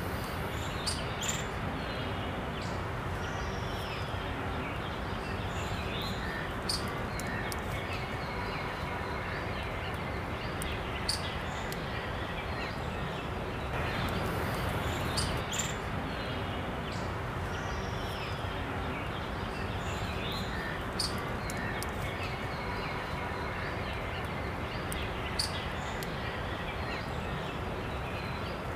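Steady outdoor nature ambience: an even rushing noise with birds chirping briefly now and then.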